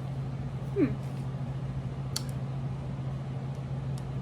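Small plastic blind-bag packaging being handled, with a few faint clicks, over a steady low hum. A short falling squeak comes about a second in.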